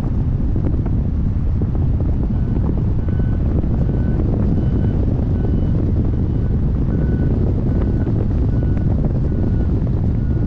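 Airflow rushing over the microphone of a camera on a hang glider in flight, a steady heavy buffeting. From about two seconds in, a short, steady-pitched beep repeats about twice a second: a flight variometer signalling that the glider is climbing in lift.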